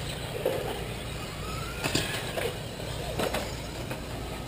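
Radio-controlled 2WD short course trucks racing on a dirt track, their motors heard as a faint whine that rises about a second and a half in, with a few sharp knocks.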